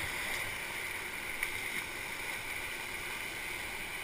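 Whitewater rapids rushing steadily around an inflatable raft, with one brief knock about a second and a half in.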